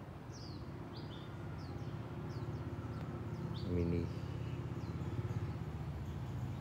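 Small birds chirping, short high falling chirps every half second or so, over a steady low hum.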